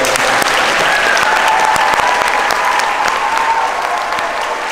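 A large audience applauding, with some voices cheering over the clapping.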